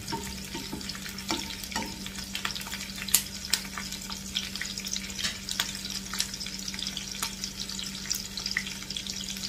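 Onion pieces sizzling and crackling in hot oil in a frying pan, stirred with a spatula for the first few seconds, with a sharp pop about three seconds in.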